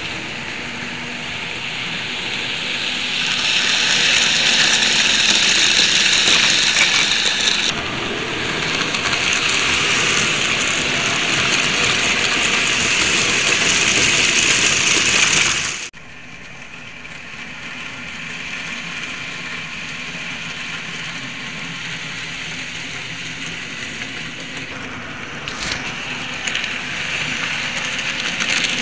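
N scale model freight train rolling past close by: a steady rattling rush of small wheels on the rails. It grows louder a few seconds in as the cars pass, then cuts off suddenly about halfway to the quieter sound of another train rolling by, which swells again near the end.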